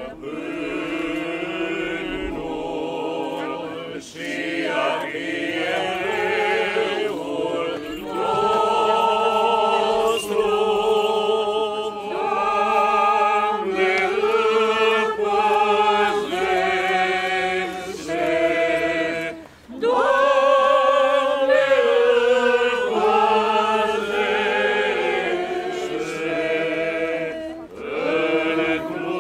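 Church choir chanting an Orthodox liturgical hymn in long held notes that move in steps, over a steady low drone, with short breaks between phrases.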